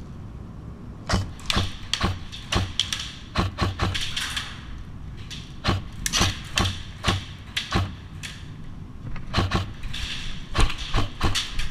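Airsoft rifles firing rapid single shots in an irregular string of sharp clicks and cracks, starting about a second in, with short rustling hisses between volleys.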